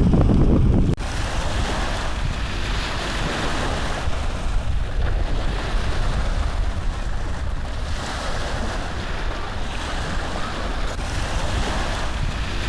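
Steady rushing noise with no distinct events. A louder low rumble drops away abruptly about a second in.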